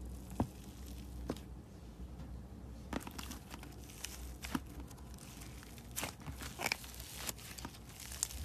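Soft slime squeezed and kneaded by hand, clicking and crackling. There are a few separate clicks at first, then denser crackling from about three seconds in.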